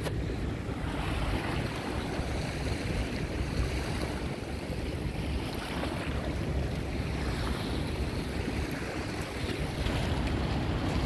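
Wind rumbling on the microphone over a steady wash of choppy sea water.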